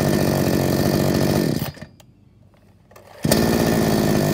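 Morrison 45cc two-stroke chainsaw starting easily on its soft-start pull cord and running steadily, cutting out about a second and a half in, then starting abruptly again a little after three seconds and running on.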